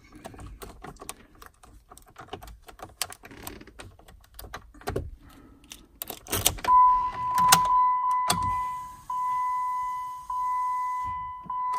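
Car keys jangling and clicking as they are handled, then a few sharp clicks and, from about seven seconds in, a steady high electronic warning chime from the Jeep Patriot's dashboard, just before it is started on a freshly installed battery.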